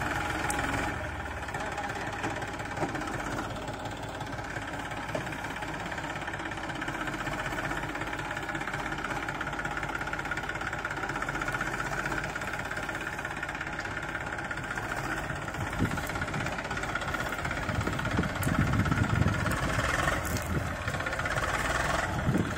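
Eicher 380 40 HP tractor's diesel engine running steadily, with a knocking note, then growing louder about eighteen seconds in as it takes up the loaded soil trolley and begins to pull away.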